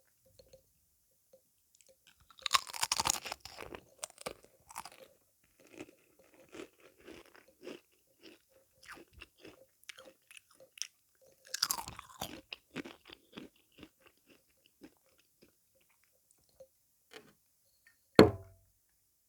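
A person biting into a crunchy sweet twice, about two and a half seconds and eleven and a half seconds in, with crunchy chewing between the bites; a single sharp knock near the end is the loudest sound.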